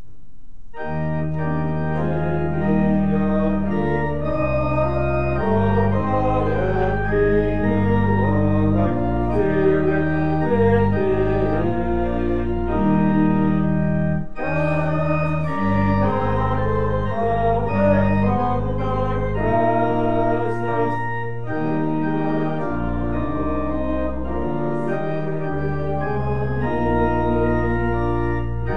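Organ playing sustained full chords over a low bass line, starting about a second in, with a brief break near the middle.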